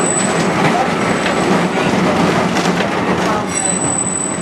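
Preserved Rotterdam museum tram running on curving street track, heard from inside the car: a steady rumble and rattle of wheels on rail, with a thin high wheel squeal that grows stronger near the end.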